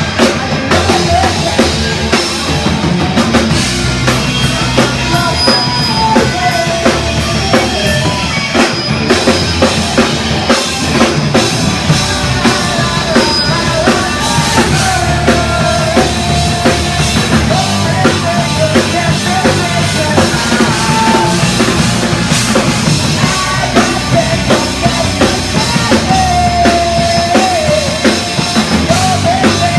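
Rock music with a full drum kit (bass drum and snare) keeping a steady beat under a bending, wavering lead melody.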